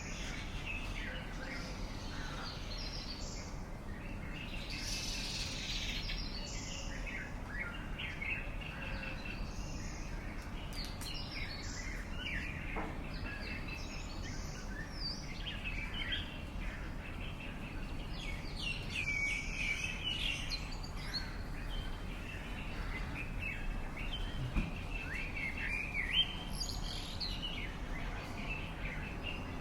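Several birds calling and singing at once, a busy overlapping mix of short chirps and whistled notes, over a steady low background rumble.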